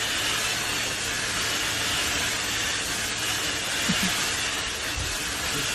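High-velocity pet dryer blowing air: a steady loud rush of air over a low motor hum.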